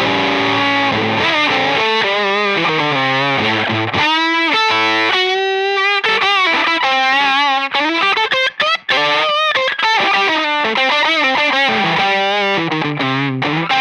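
Electric guitar played through a one-knob silicon fuzz pedal: a distorted lead phrase of held notes with wide vibrato and string bends.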